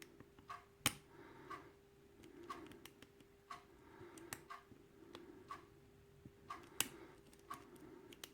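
Faint, irregular clicks and ticks of a lock pick and tension wrench working the pin stack of a Kwikset lock cylinder during single-pin picking, with two sharper clicks about a second in and near seven seconds, over a faint steady hum.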